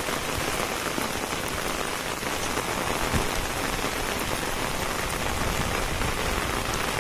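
Heavy rain falling steadily on a wet concrete path and the plants and bamboo beside it.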